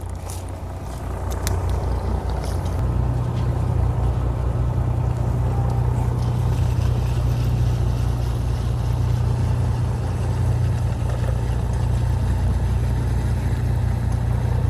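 Fishing boat's engine running steadily, with a few light clicks in the first couple of seconds. About three seconds in, the engine note picks up and grows louder, then holds.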